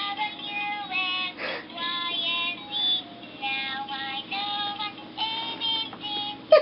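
Electronic musical toy playing a tune with a synthesized singing voice, its notes coming through a small speaker. One short, sharp, loud sound right at the end.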